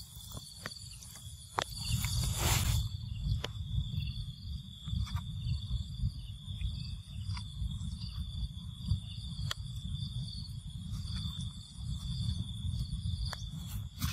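Insects buzzing steadily and high, with scattered crackles and snaps of dry leaves and twigs as a baby monkey scrambles over the leaf litter and tree roots. There is a louder rustle about two to three seconds in, and a low rumble on the microphone throughout.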